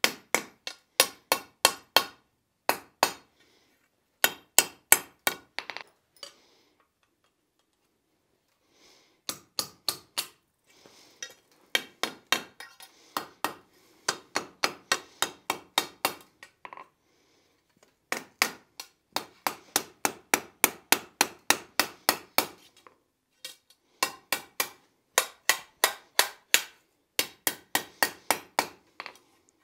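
Hand hammer striking a hot, thin steel hinge strap on an anvil, rolling the hinge eye and closing it around a pin. Quick runs of ringing blows, about four a second, broken by short pauses.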